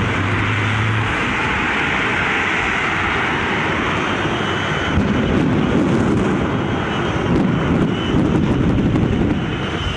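The Shockwave jet truck's three jet engines running with afterburner flames, heard across the airfield as a loud, steady rushing noise that grows deeper about five seconds in.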